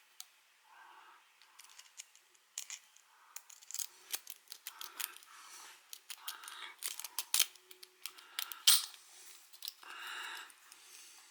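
Rake lock pick scraping and clicking across the pin tumblers of a solid steel Tessi marine padlock, in irregular scratchy strokes with sharp metallic clicks.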